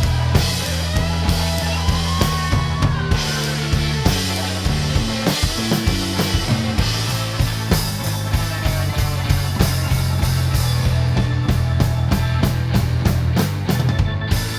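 Blues-rock band playing an instrumental passage without vocals: a drum kit hitting steadily over a sustained bass line.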